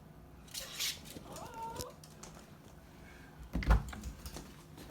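Toy poodles whining in short, high cries that rise and fall, with scattered clicks and taps; a single thump about three and a half seconds in is the loudest sound.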